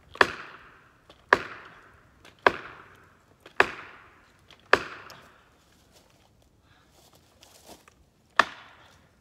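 Heavy blows driving a felling wedge into the cut of a large hemlock to tip it over. Five strikes come about a second apart, each ringing out, then one more near the end after a pause.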